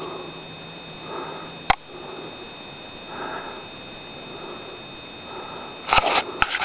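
A person breathing heavily and rhythmically, about one breath a second, as they walk on a slope with a handheld camera. There is a single sharp click about a second and a half in, and loud scuffing and rustling near the end.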